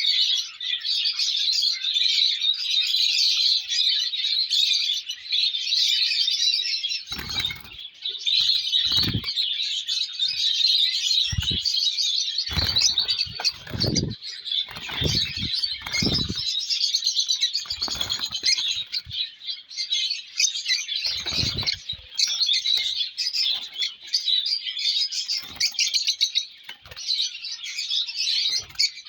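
Lovebird chicks chirping continuously in a dense, high-pitched chatter. Brief thumps or rustles break in several times in the middle.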